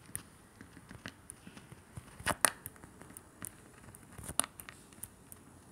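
Stylus tapping and scratching on a tablet screen during handwriting: a scatter of small clicks, with two louder taps about two seconds in and again past four seconds.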